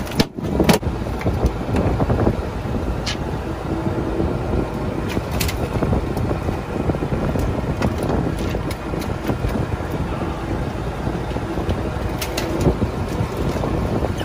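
Sharp slaps and knocks from a freshly landed, meter-class mahi-mahi thrashing and being handled on a boat deck, a few times, over a steady rumble of wind on the microphone and the boat.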